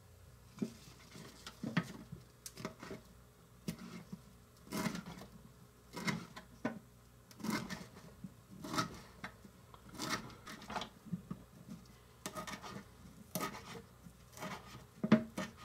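Small knife chopping fresh parsley on a small wooden cutting board: uneven knocks of the blade on the wood with the soft crunch of the leaves, about one or two a second, some in quick little runs.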